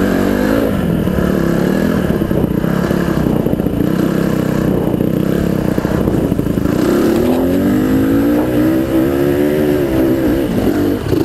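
Honda CRF150R dirt bike's single-cylinder four-stroke engine running under way, heard from the rider's helmet microphone. The revs rise and fall; they climb from about seven seconds in and drop off near the end.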